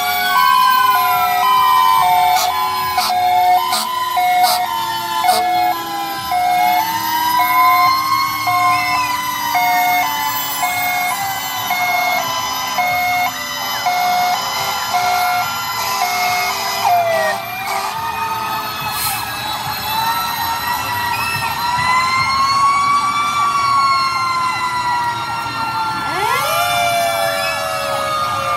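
Several fire truck sirens sounding at once, their wails overlapping as they rise and fall, with a repeated on-off tone and a low siren tone slowly winding down throughout. A siren winds up again sharply near the end.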